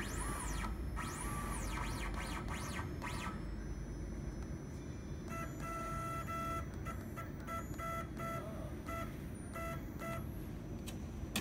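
Short electronic beeps from the handheld controller of a CNC wood-turning lathe, some brief and some longer, from about five to ten seconds in, as its keys are pressed. Before them, in the first three seconds, a whine rises and falls in pitch several times over a steady low machine hum.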